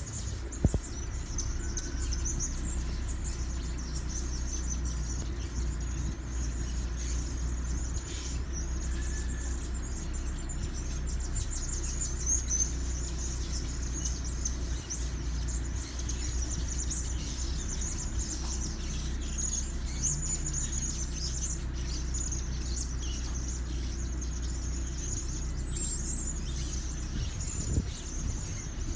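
Caged blue-crowned hanging parrots (serindit) chirping in high, thin, rapid notes over a steady low rumble, with a single knock about a second in.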